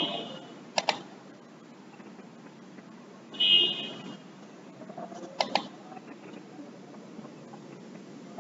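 Quiet room tone between sentences, broken by a few short clicks, in pairs about a second in and again past the middle, and one brief high-pitched chirp around halfway.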